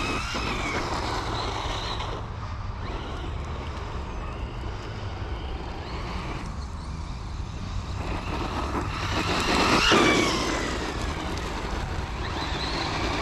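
FTX Crossbow 1/10 brushless RC truggy being driven, its brushless motor whining and sliding up and down in pitch as it speeds up and slows. It is loudest about ten seconds in as the truck comes close.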